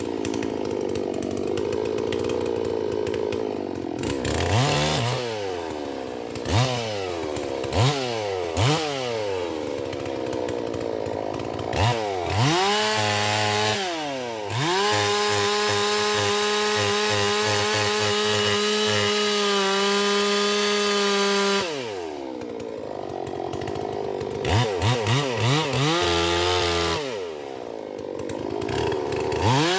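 Holzfforma G444 two-stroke chainsaw, a clone of the Stihl MS440, idling and being revved. There are several short throttle blips, then it is held at full throttle for about six seconds in the middle, drops back to idle, gets a quick run of blips, and revs up again near the end.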